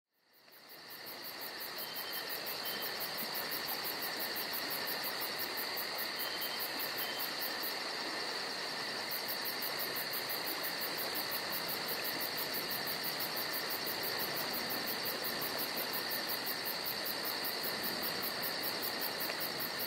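Crickets trilling steadily in a continuous, even chorus, fading in over the first second.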